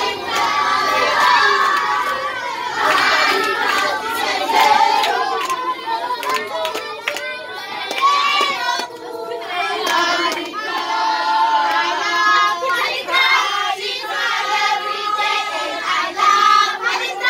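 A group of children singing and shouting together, with hand-clapping running through it. The voices overlap throughout, with some notes held for a second or so.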